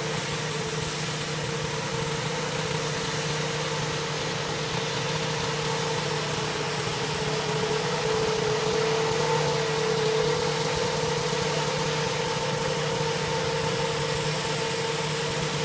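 Gas-engine pressure washer running steadily, its engine hum mixed with the hiss of the high-pressure water spray, growing a little louder around the middle.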